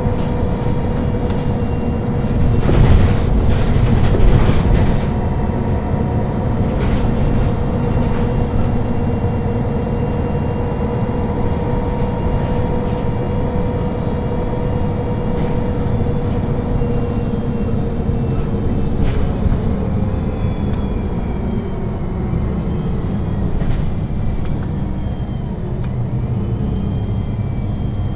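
MAN NL 263 low-floor city bus heard on board while driving: the diesel engine and drivetrain run steadily with a constant whine. A louder noisy stretch comes about three seconds in, and a rising whine about twenty seconds in as the bus picks up speed.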